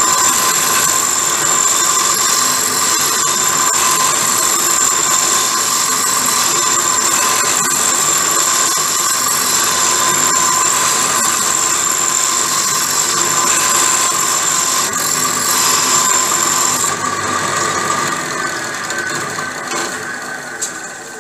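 Pedestal drill press running steadily with a small cutter cutting into the steel dogs of a gearbox gear, back-cutting the dog faces so they stop slipping out of engagement. A high whine stops about 17 seconds in, and the machine's sound dies away near the end.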